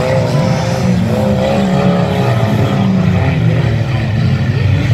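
Several banger racing cars' engines running and revving at once, a loud, steady rumble with engine notes rising and falling.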